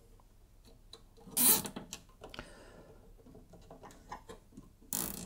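Hands handling a power cable and a plastic cable tie inside a metal PC case: quiet rubbing with small ticks, and two short, louder scrapes, about a second and a half in and again near the end.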